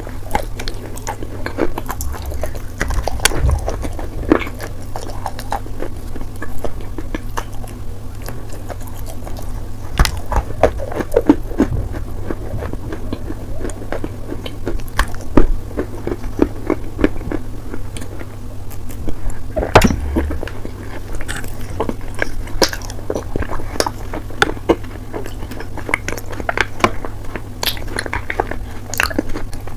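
Close-miked chewing of Turkestan clay chunks coated in clay paste: irregular crunches and mouth clicks, with a few sharper crunches scattered through.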